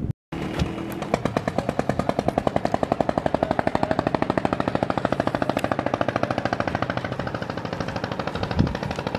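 Boat engine running steadily with a fast, even chugging of about eight beats a second. The sound starts abruptly after a moment's silence near the start.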